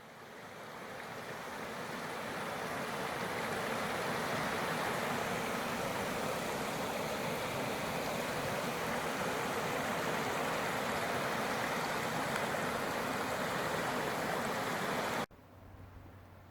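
Meltwater in a swollen creek rushing during the spring thaw, a steady dense roar of moving water. It rises over the first few seconds and cuts off abruptly near the end.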